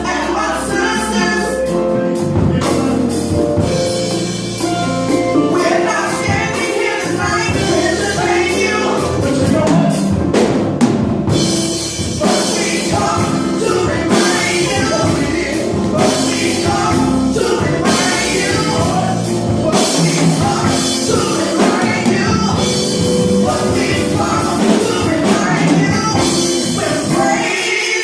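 Gospel worship song: singing voices over a band with drum kit.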